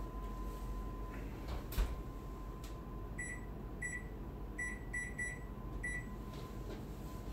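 Oven door thumps shut about two seconds in, then six short, high electronic keypad beeps as the timer is set on the built-in wall oven and microwave unit, over a faint steady hum.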